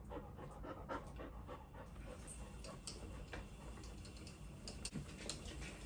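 A dog panting faintly, with soft scattered clicks.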